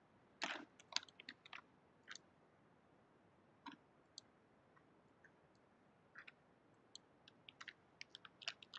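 Near silence broken by faint, short clicks, clustered near the start and again toward the end with a quiet stretch between.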